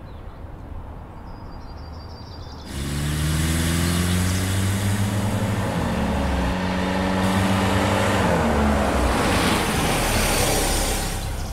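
A car driving up with its engine running. The engine sound comes in suddenly about three seconds in, rises slightly in pitch, then holds steady, and cuts off just before the end.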